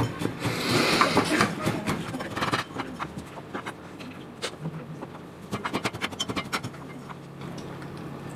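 Walnuts being crushed with a pestle in a small metal mortar: dense grinding and knocking in the first couple of seconds, then a quick run of light sharp taps a little past the middle.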